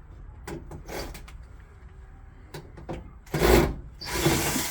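Hands working on a furnace cabinet: a few light clicks and knocks, then two louder scraping rubs near the end.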